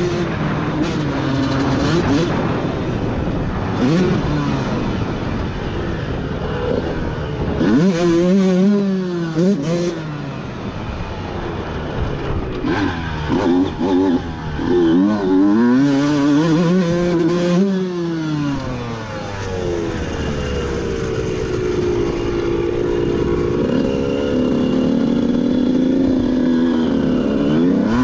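Two-stroke Honda dirt bike engine under hard riding, revving up and dropping off again and again as the rider accelerates, shifts and backs off. There are quick rises and falls in pitch through the middle, then a steadier pull that climbs slowly near the end.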